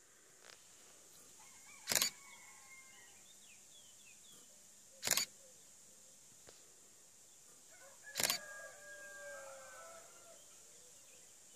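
DSLR shutter firing three times, about three seconds apart, each a quick double click. These are the shots of an automated focus-stacking sequence triggered by the macro-rail controller. Faint bird calls in the background.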